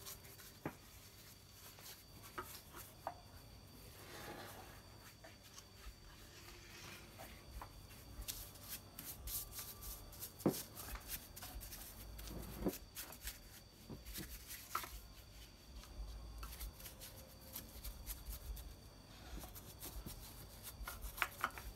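Paintbrush working polish into carved wood: faint, scratchy bristle strokes and dabs, with scattered light taps of the brush against the carving.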